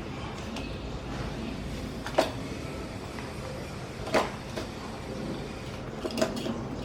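Three sharp knocks, about two seconds apart, over a steady low background rumble.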